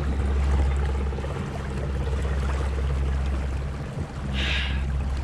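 Fishing kayak under way on a river, driven by its electric motor: water rushing along the hull over a steady low rumble and hum. A brief hiss about four and a half seconds in.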